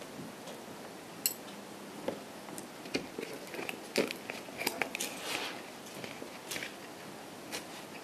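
A person eating a salami pizza slice close to the microphone: irregular biting and chewing clicks and crackles, busiest in the middle few seconds.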